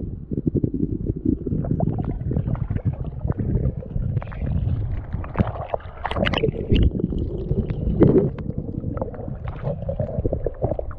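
Muffled water sloshing and rumbling heard underwater beside a mesh crawfish trap, turning to sharper splashing and dripping about halfway through as the trap is lifted up through the creek's surface.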